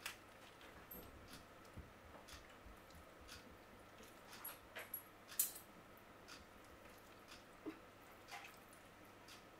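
Faint, scattered clicks and light scrapes of a metal fork against a ceramic serving dish as baked fish is lifted off the bone, the sharpest click about five and a half seconds in.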